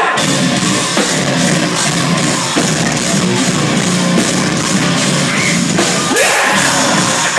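A live heavy rock band playing loud: distorted guitars over a drum kit keeping a steady beat.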